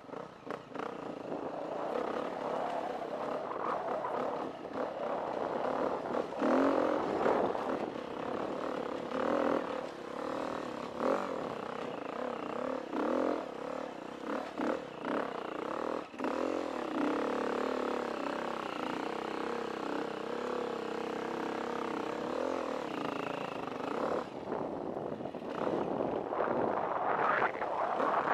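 KTM 350 EXC dirt bike's single-cylinder four-stroke engine revving up and down through the gears while climbing rutted hill trails, getting louder near the end.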